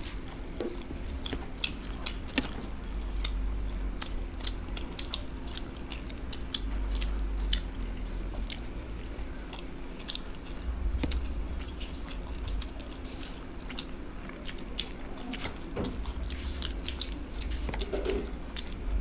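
Two people chewing and biting fast on deep-fried luchi with egg curry, eaten by hand, with many small irregular wet mouth clicks. A steady high-pitched whine runs underneath.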